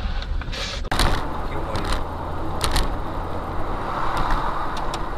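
Steady low road and engine rumble heard from inside a moving car, starting suddenly about a second in, with a few light clicks.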